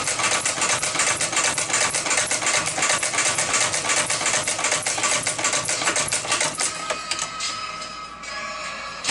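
Shoe repair sewing machine running fast, its needle stitching in a rapid, even rhythm. About seven seconds in it slows and quietens, then starts up again near the end.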